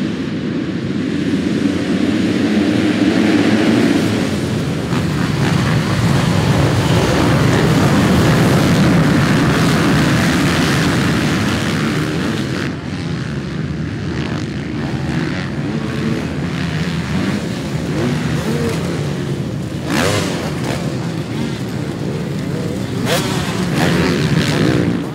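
A pack of MX2 motocross bikes revving hard and pulling away together as a group, then bikes racing past on the dirt track.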